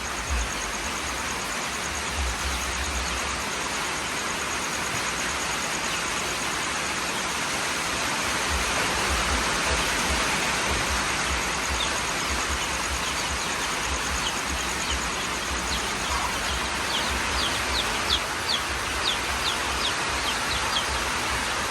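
Steady rain falling, with chicks peeping in short high chirps over the second half, coming thick and fast near the end.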